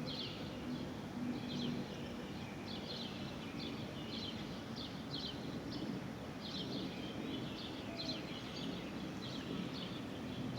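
Birds chirping: a steady run of short, high chirps that fall in pitch, about two a second, over a constant low outdoor background noise.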